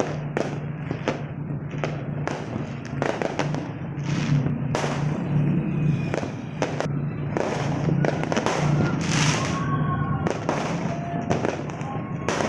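Fireworks and firecrackers going off across a city: many irregular, overlapping bangs and crackles, some sharp and close, others dull and far off. A steady low hum runs beneath them, and a few faint thin whistles come in the second half.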